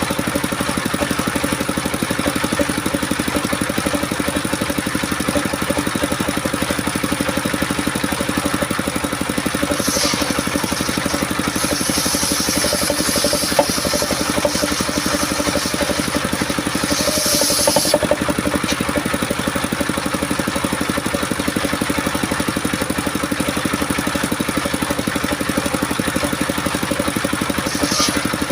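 Engine-driven homemade circular saw running steadily. Several times, at about 10 s, from about 12 to 16 s, around 17–18 s and near the end, a higher hissing edge joins the engine note, as the blade bites into coconut-palm wood.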